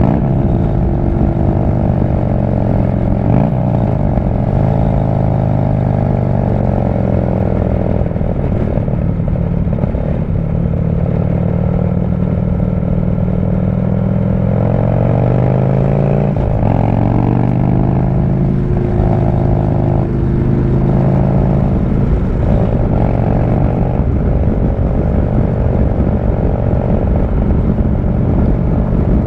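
Harley-Davidson V-twin motorcycle engine running under way, heard from the rider's seat with wind rumble on the microphone. The engine note sinks slowly through the first half, changes sharply a little past halfway, then climbs and varies with the throttle.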